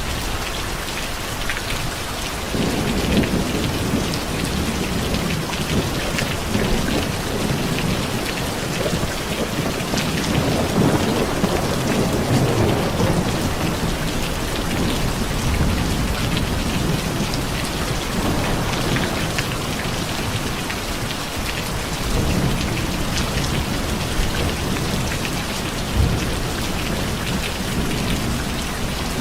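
Steady rain falling, with low rolling rumbles of thunder coming in about two and a half seconds in and swelling again around the middle and near the end.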